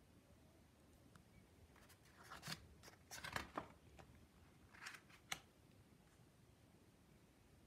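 A picture book's paper page being turned: a few short rustles and brushes of paper between about two and five and a half seconds in, otherwise near silence.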